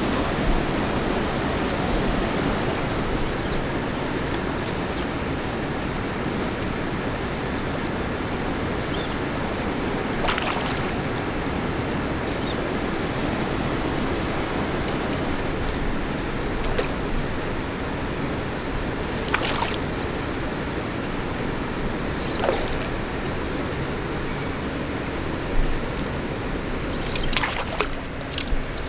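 Steady rush of flowing water around wading anglers, with a few short high chirps now and then.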